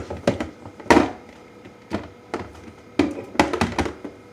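Items being handled in a refrigerator's door shelves: a series of sharp knocks and clatters, the loudest about a second in and three more close together near the end.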